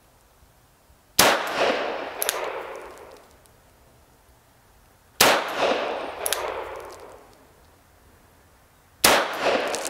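Three shots from an M1895 Nagant revolver firing 7.62×38mmR military surplus ammunition, about four seconds apart. Each shot is loud and rings out for about two seconds.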